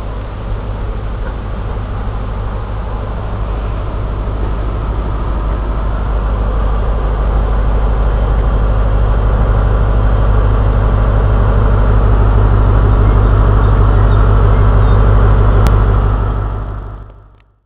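Diesel engine of an HST Class 43 power car running as the train draws slowly along the platform, a deep steady drone that grows gradually louder, then falls away sharply near the end.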